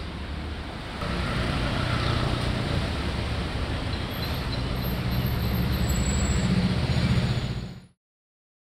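Street traffic ambience: a steady rumble of road vehicles, a little louder after about a second, cutting off abruptly near the end.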